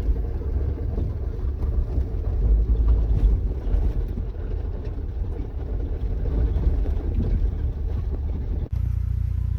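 Honda Element driving slowly over a rough forest track, heard from the cabin: a loud low rumble of tyres and suspension with irregular knocks and rattles. Near the end it cuts abruptly to a steadier, smoother hum.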